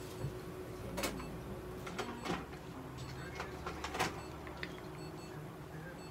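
Handling noises on a veterinary exam table: about five sharp clicks and knocks, the loudest about four seconds in, over a steady low hum.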